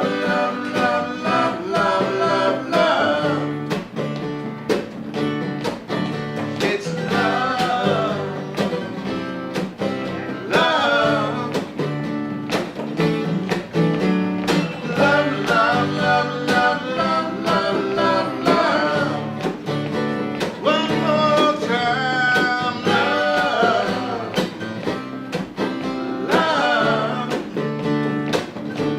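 Acoustic band playing an instrumental passage: steadily strummed acoustic guitar with a bending lead melody line over it.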